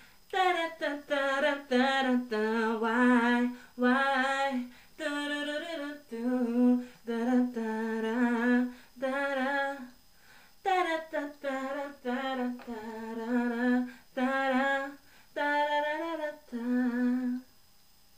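A woman's solo voice singing without words and without accompaniment: a run of short held notes with vibrato, in phrases separated by brief breaths. The notes stop shortly before the end.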